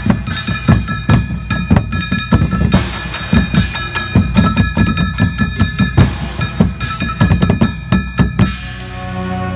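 Band music dominated by drums and percussion, rapid bass and snare drum hits over a few held tones. The drumming stops about eight and a half seconds in, leaving a sustained chord.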